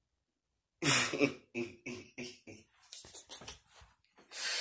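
A man laughing: a run of short, rhythmic 'ha' bursts, about three a second, that start about a second in and trail off.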